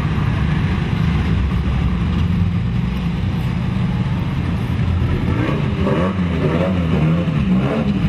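Car engine running at low revs as a car rolls slowly past, a steady low rumble.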